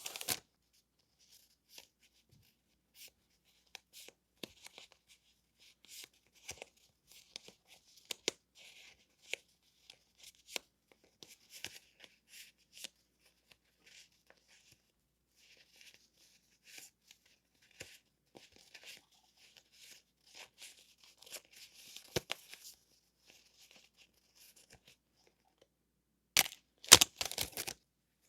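Paper stationery and its packaging being handled and unwrapped close to the microphone: scattered soft rustles and small taps throughout, with a louder spell of handling near the end.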